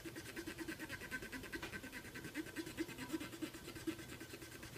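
Cotton swab scrubbing rapidly back and forth on a black plastic computer case: a faint, even, rhythmic scratching of several strokes a second.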